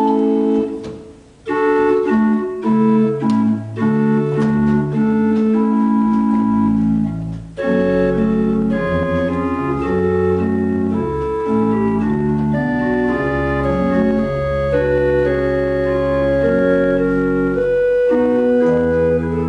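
Church pipe organ being played: held chords and a moving line of notes. There is a short break about a second in, and from about eight seconds deeper bass notes fill out the sound.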